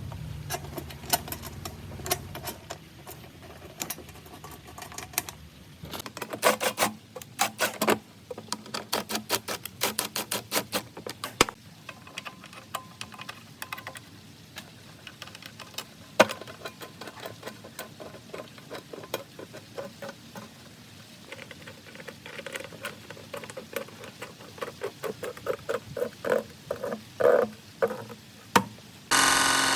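Hand work on small metal parts: a string of sharp clicks and taps, broken by quick rattling runs of ticks like a ratchet or a rapidly turned tool.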